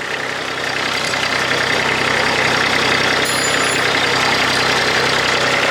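Kubota D1105 three-cylinder diesel in a MadVac rider vacuum running steadily, with the vacuum fan rushing air over it and the machine vibrating hard. It has just been revived, fed by an electric fuel pump that bypasses the mechanical pump. The sound swells slightly over the first two seconds, then holds steady.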